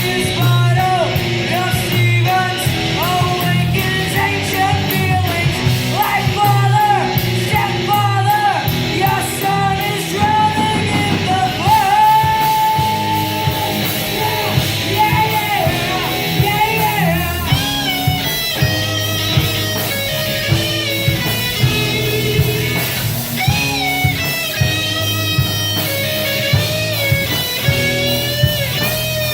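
Rock band playing: electric guitar and bass with singing over a steady beat.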